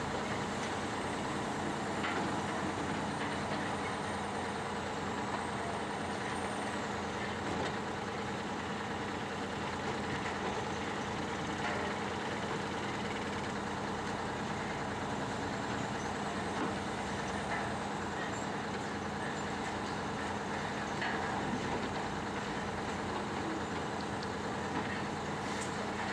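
Heavy machinery engine running steadily, with a constant low hum and a faint high whine.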